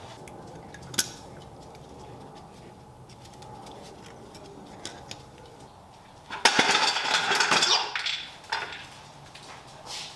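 Light metallic clinking and rattling: a sharp click about a second in, then a louder burst of rattling clinks lasting about a second and a half near the end, with a few more single clicks after it.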